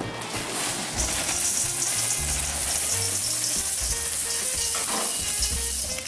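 Dry Golden Grahams cereal pouring from a plastic bag into a stainless steel mixing bowl: a steady, dense rustling hiss of pieces falling and piling up, starting about a second in and easing off near the end. Background music with a low bass line plays underneath.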